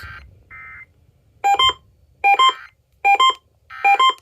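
Electronic alert beeping from an emergency alert radio set off by an Emergency Alert System test. A short stepped beep repeats about every 0.8 s, four times, starting about a second and a half in, with a fainter buzz just before.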